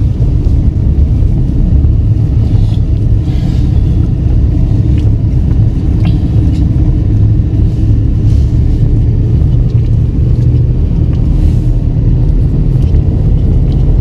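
A car driving on a snow-packed dirt road, heard from inside the cabin: engine and tyre noise make a steady low rumble.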